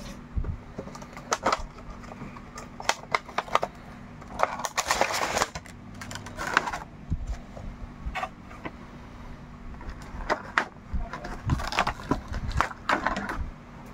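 Cardboard Funko Pop box and the figure's clear plastic tray being handled and opened: irregular scraping, tapping and crinkling with sharp clicks, busiest in the middle and again near the end, over a faint steady hum.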